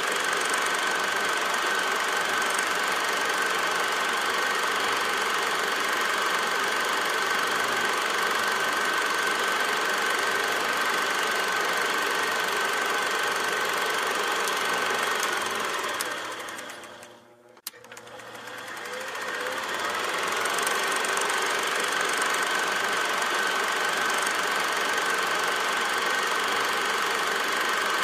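A machine running steadily with a mechanical clatter and a constant high whine. It fades almost away about two-thirds of the way through, with a click at its quietest, then swells back up.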